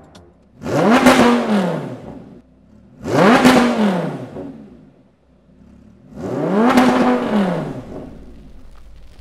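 Lamborghini Gallardo LP560-4's V10 revved three times at standstill through a Fi Exhaust valvetronic cat-back system with X-pipe. Each rev climbs sharply in pitch and falls back to a quiet idle.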